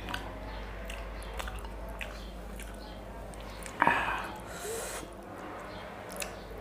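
Close-miked eating sounds: soft wet mouth clicks and chewing of fried egg, with one louder, sharp mouth noise about four seconds in.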